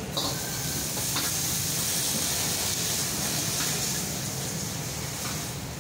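Kwetiau (flat rice noodles) stir-frying in a hot wok over a gas burner, sizzling hard from a sudden start as the wok flares with flame. A few light metal clinks from the cooking tools are heard through it, and the sizzle eases off near the end.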